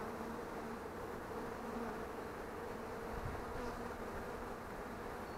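Honey bees buzzing steadily around an opened hive, a steady hum. This is a weakened colony that the beekeeper is pretty sure has lost its queen.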